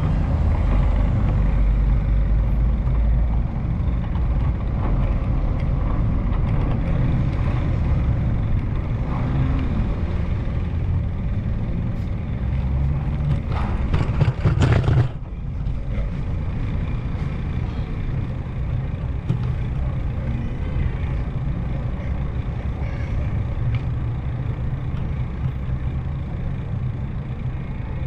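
Road vehicle noise: a steady low engine and road rumble, with a short burst of rattling clicks about halfway through, after which it runs a little quieter.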